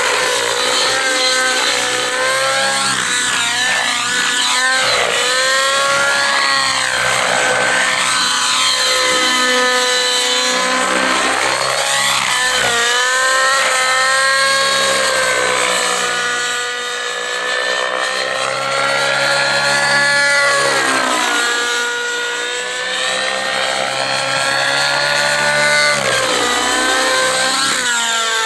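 Rave ENV 90 nitro RC helicopter in aerobatic flight: its two-stroke glow engine and rotor whine continuously, the pitch rising and falling over and over as it is thrown through manoeuvres.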